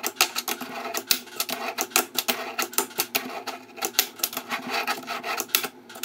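4-ply wooden fingerboard deck doing tricks on a tabletop: repeated sharp wooden clacks, several a second and unevenly spaced, as the tail pops and the board lands. The small wheels roll and scrape on the table between the clacks.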